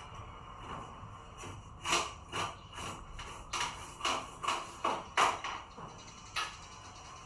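A string of about ten short taps and clicks over a few seconds, some with a brief ring.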